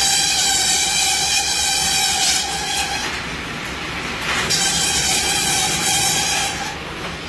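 Satay skewer machine running with a steady mechanical clatter. A high whine with several tones comes in for about three seconds, stops, and returns about four and a half seconds in for another two seconds.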